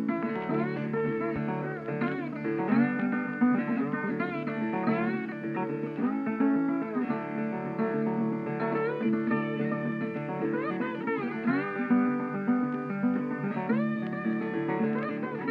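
Background music of plucked guitar with bending notes, starting suddenly and running steadily.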